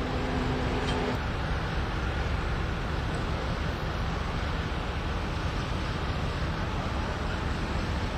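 Steady low rumble of road traffic and vehicle engines, with wind on the microphone; a faint steady hum stops about a second in.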